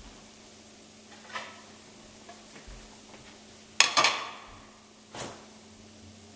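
Kitchen clatter: a small knock, then a loud pair of clinks with a brief ring about four seconds in, then one more knock, as dishes or utensils are handled over a faint steady hum.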